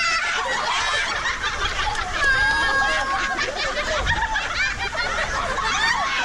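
Crowd of many voices chattering and laughing together. About two seconds in, a brief steady tone sounds over the voices for less than a second.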